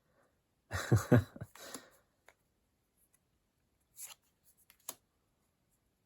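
Trading cards being handled, with a few brief rustles and flicks about four and five seconds in. Before them, near a second in, there is a short voice sound.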